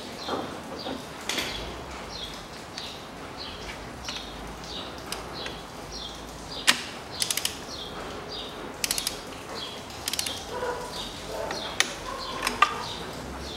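Ratchet wrench on a long extension clicking in several short runs in the second half, turning a spark plug in the cylinder head. Small birds chirp repeatedly in the background.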